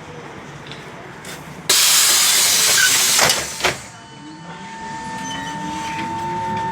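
LAZ E-183D1 trolleybus: a sudden loud hiss of compressed air from its pneumatic system lasting about a second and a half, then a clunk, then the electric drive's whine slowly rising in pitch over a steady high tone as the trolleybus pulls away.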